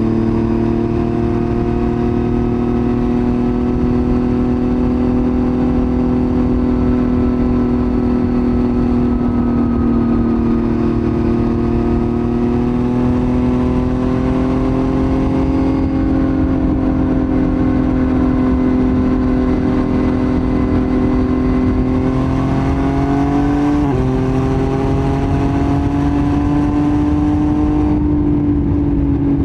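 Yamaha MT-09's three-cylinder CP3 engine breathing through a Roadsitalia titanium full exhaust, pulling steadily under way, its pitch drifting slowly up and down. A quick dip and rise in pitch comes a few seconds before the end.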